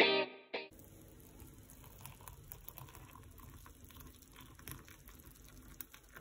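A guitar phrase ends in the first second. Then hot water from an electric kettle gives a faint, steady watery hiss with scattered small ticks, boiling and then being poured into a tea mug.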